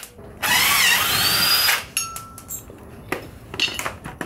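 Cordless power tool running for about a second and a half, its motor pitch rising and falling, as it spins out a 13 mm brake caliper bracket bolt. A few light metal clicks follow as the parts are handled.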